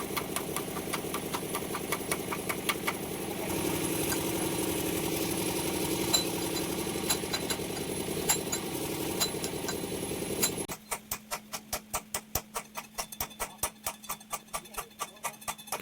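An engine running steadily with a regular clatter. About 11 s in it cuts off abruptly and is replaced by a rhythmic ticking beat over a steady drone, as from background music.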